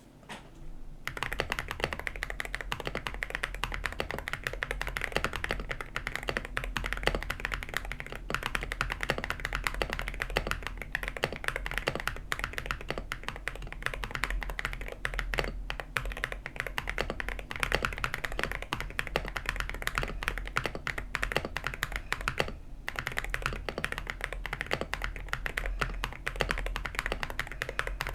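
Typing on an AKKO 5098B mechanical keyboard in its 1800 layout: a fast, continuous run of key clicks that pauses briefly about three-quarters of the way through, over a faint steady low hum.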